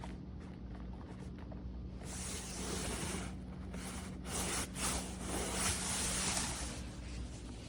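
A rustling, rubbing noise lasting about five seconds, starting about two seconds in, over a steady low hum.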